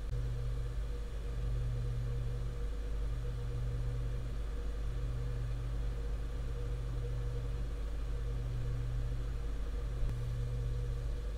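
Desktop PC running with an Arctic Freezer Xtreme CPU cooler, idle and then under a CPU stress test: a steady whir and hum that comes from the case fan and the hard drives, the cooler itself adding little. A low hum in it swells and drops every second or so, and a single click sounds near the end.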